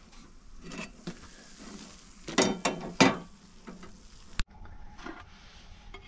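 Scrapes and knocks of pots and utensils being handled, with a few harsh scrapes in the middle and a sharp click about four seconds in.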